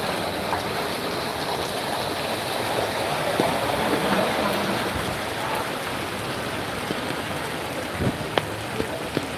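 Steady rain falling on a flooded street, with a few sharp taps near the end.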